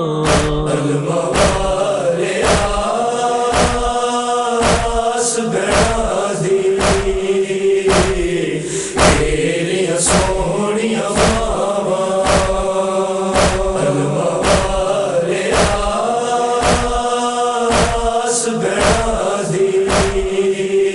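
Noha chorus: voices holding a long, slowly moving chant over a steady beat of chest-beating (matam) thumps, roughly three every two seconds.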